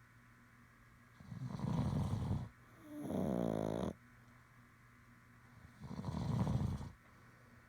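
Snoring during sleep: a rattling snore, then a pitched, wavering snore-whine, then another rattling snore, with quiet pauses between breaths.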